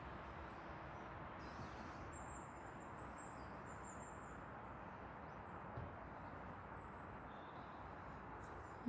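Faint, steady outdoor background hiss in woodland, with a few thin, high, faint bird notes about two seconds in and again near the end.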